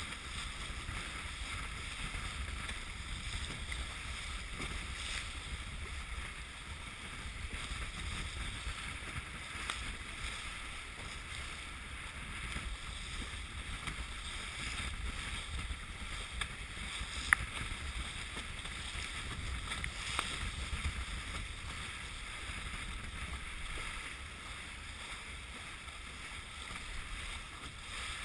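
Wind rumbling on the microphone over a steady hiss of water along a sailboat's hull as it sails, with one sharp click about two-thirds of the way through.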